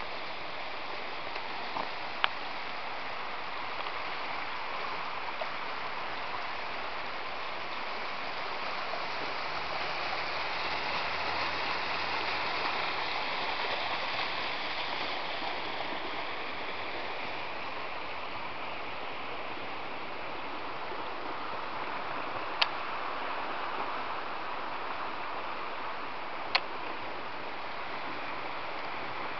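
Fast-flowing river rushing over rapids, a steady rush that swells a little about a third of the way in. Three sharp clicks cut through it, one near the start and two near the end.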